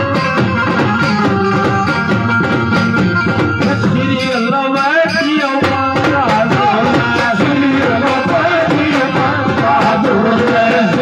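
Live devotional folk bhajan: drum strokes keep a steady beat under held instrument tones, and a man's singing voice comes in about four seconds in. The drum's lowest sound drops out briefly around then.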